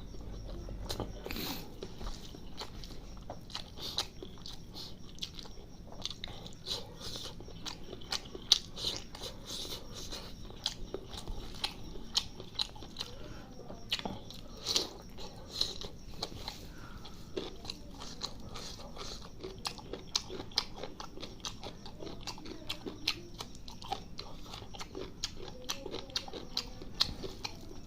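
Close-miked eating sounds of chicken liver curry with rice: wet chewing, lip smacks and sharp mouth clicks, irregular and frequent throughout.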